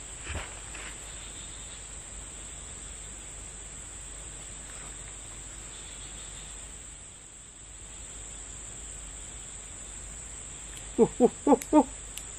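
Insects chirring steadily as a constant high-pitched drone. Near the end, a run of four or five short, loud vocal bursts from a man, falling in pitch like a quick laugh or exclamation.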